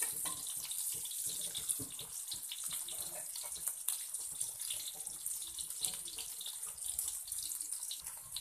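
Shallots, garlic and chilies sizzling in hot oil in an aluminium wok, a steady hiss with scattered crackles and pops, stirred with a metal spatula at first. The aromatics are being sautéed until wilted.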